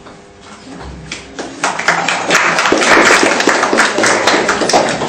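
An audience applauding: clapping that swells from about a second and a half in and starts to thin out near the end.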